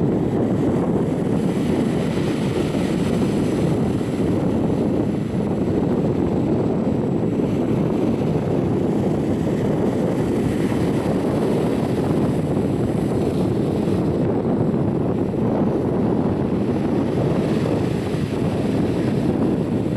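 Steady rumble and rush of a Vivalto double-deck passenger train running along the line, heard inside the carriage on the upper deck.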